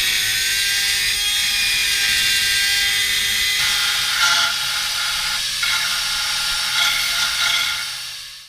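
Handheld power tool running steadily against the sheet metal of a VW bus's rear wheel well, cleaning it back. Its whine shifts in pitch a few times as the load on it changes.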